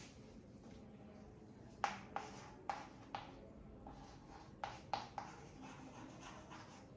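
Chalk on a chalkboard while words are written: a string of short sharp taps and light scratches, about seven taps in the middle few seconds.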